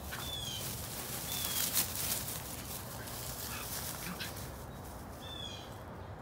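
A bird calling in short, high, falling chirps, a few times and some seconds apart, over a steady outdoor hiss. A brief knock comes about two seconds in.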